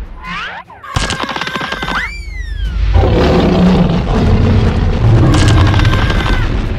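Cartoon sound effects: a whoosh, a sharp hit about a second in, a whistle that rises and then falls, and from about three seconds in a loud rumbling din.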